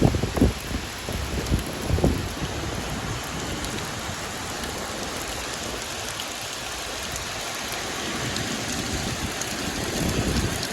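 Heavy rain falling steadily, a dense even hiss. There are a few short low rumbles in the first two seconds, and a low rumble builds near the end.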